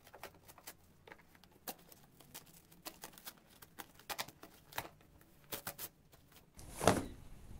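Cardboard shipping box being torn open by hand: scattered crackles and small rips of cardboard, with a louder bump of the box near the end.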